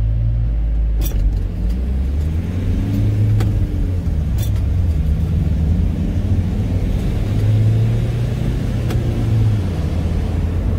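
Vehicle engines accelerating away from a green light, heard as a low rumble inside a van's cab, the pitch rising and falling back a few times as it speeds up. A few sharp clicks stand out above it.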